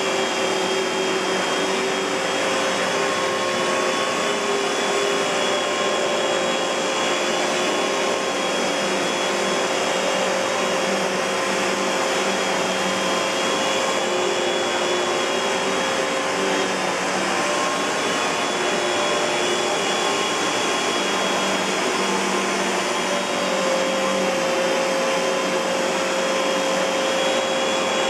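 Kenmore Progressive canister vacuum, driven by a SIP Cinderson blower motor, running steadily: an even rush of air under a constant motor whine.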